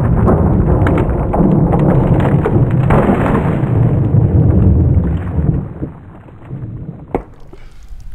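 Long, deep rumbling boom from a .357 revolver shot that bursts a water-filled jug, running for about five seconds before it falls away. A single sharp knock near the end.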